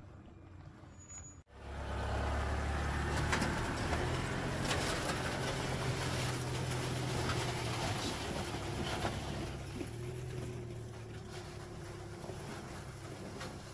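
Toyota RAV4 Hybrid driving on a rough 4x4 track: a steady low drivetrain hum with tyre noise and occasional clicks and knocks. It starts suddenly about a second and a half in.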